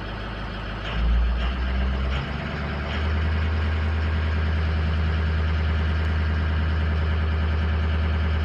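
Ford 6.0L Power Stroke V8 diesel idling, then its speed raised from about 785 to about 1,170 rpm, stepping up about a second in and settling steady by about three seconds. The mechanic has found the variable-geometry turbo seized, so the engine makes almost no boost at the raised speed.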